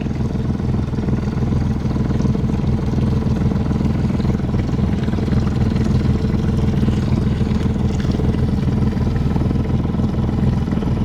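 Boat engine running steadily at low speed, a constant low drone that holds one even pitch throughout.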